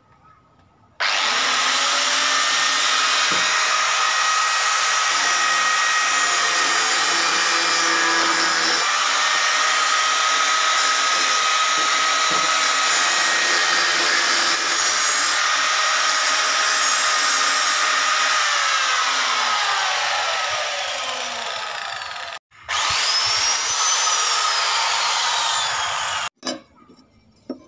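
Angle grinder with a thin cut-off disc cutting a steel sheet: a loud, steady grinding whine for about twenty seconds, falling in pitch as the motor winds down. After a short break it runs again for a few seconds, its whine rising and then falling away.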